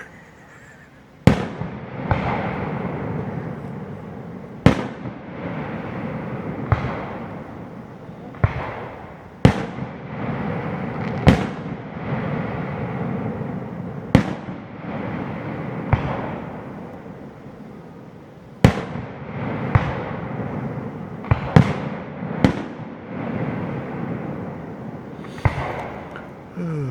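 Aerial fireworks display: about a dozen shells bursting with sharp bangs a second or several apart, each followed by a long rolling rumble of echo.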